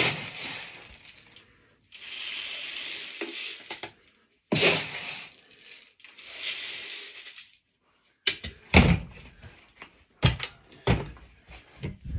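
Dry duck feed being scooped and poured into a container: three rustling pours of pellets a few seconds apart, then several sharp knocks and thumps from about eight seconds in as the feed bins are handled.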